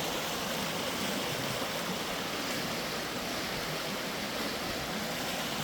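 Rain-swollen creek running over rocks: a steady rush of flowing water.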